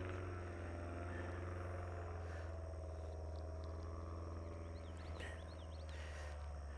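A steady low engine drone whose pitch shifts slowly, with a few brief bird chirps in the middle and some faint knocks.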